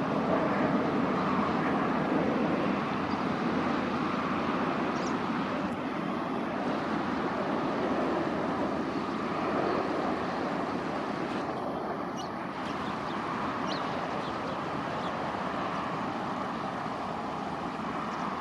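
Jet airliner's engines and rolling noise after landing, a steady rushing sound that slowly eases as the aircraft slows.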